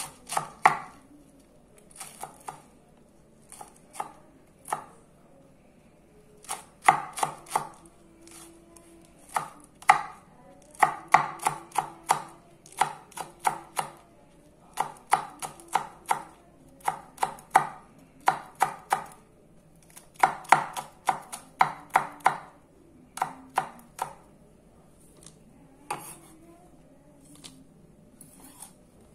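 Sakai Takayuki Damascus gyuto kitchen knife chopping a green vegetable on a wooden cutting board. Each stroke gives a sharp knock of the blade against the board. The strokes come in quick runs of a few a second, with short pauses between the runs, and they thin out near the end.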